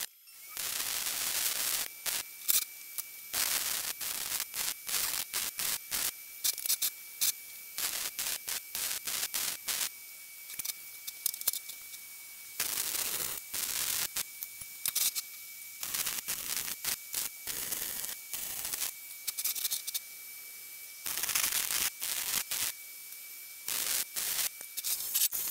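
MIG welder arc crackling and sputtering on steel square tubing, in a string of bursts: a few longer beads of a second or so and many short tacks, with brief pauses between.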